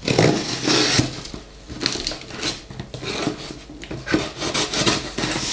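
A knife blade slitting and scraping along the packing tape on a cardboard box, in a series of short scraping strokes, with the tape and cardboard rubbing and crackling.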